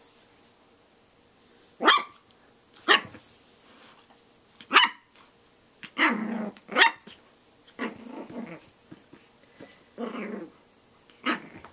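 Shih Tzu puppy barking at its own reflection in a mirror: about five short, sharp, high yaps, with low growls in between.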